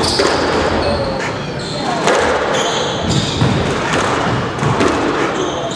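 Squash ball struck back and forth by two players: repeated sharp racket hits and ball smacks off the court walls, mixed with short, high squeaks of court shoes on the floor.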